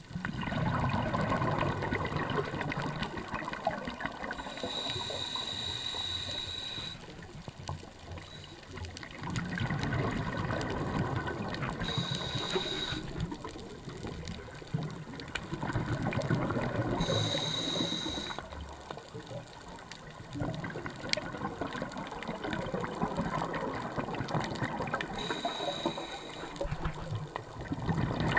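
Scuba diver breathing through a regulator in slow, repeating breaths. Each inhale is a short hiss with a high whistle, and each exhale is a longer gurgling rush of bubbles. There are about four breath cycles.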